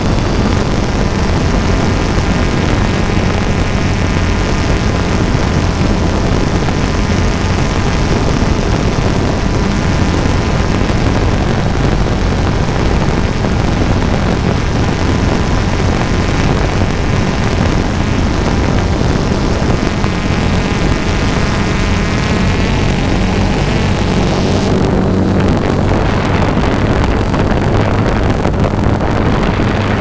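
Small multirotor drone's electric motors and propellers running steadily, heard from the camera on the drone itself: a loud buzzing whine whose pitch drifts slightly as it flies. Near the end the upper hiss drops away.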